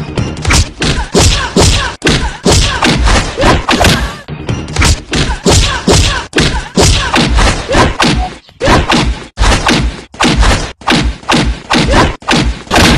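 Heavy, even drum strokes, about three a second, driving an instrumental passage of a Sindhi folk song, with a pitched melody between the strokes.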